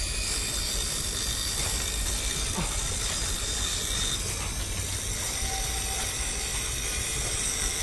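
Steady low mechanical rumble with a hiss over it and faint high whining tones, unchanging throughout: the drone of running machinery.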